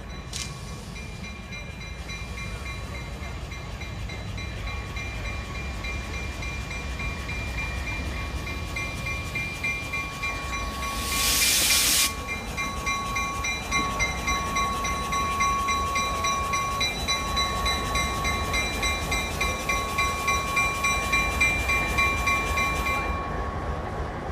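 Diesel locomotive pulling slowly into a station, its engine rumbling low while its bell rings steadily. A loud hiss of air lasts about a second midway, and the bell stops near the end as the train comes to a stand.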